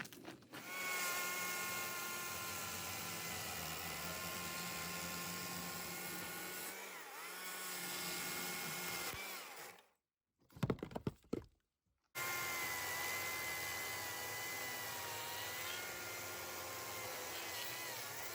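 STIHL MSA 140 C battery chainsaw cutting red oak firewood: a steady electric motor whine whose pitch dips as the chain bites into the log. About ten seconds in it cuts off suddenly, a few sharp knocks follow, and then the saw runs again.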